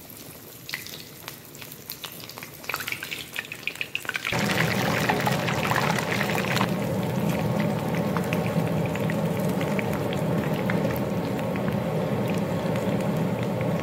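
Breadcrumb-coated burger deep-frying in hot oil in a kadai, the oil bubbling and crackling. About four seconds in it turns suddenly louder into a steady sizzle with a low hum underneath.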